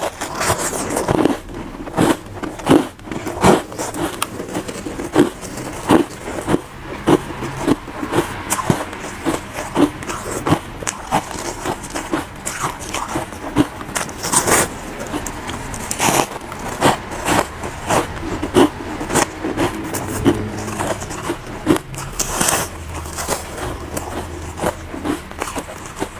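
Soft, powdery frozen foam ice being bitten and chewed: a loud, irregular string of crisp crunches and crackles, several a second.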